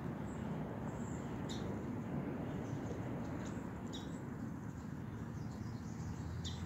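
Outdoor backyard ambience: a steady low hum with a few short, high bird chirps scattered through it.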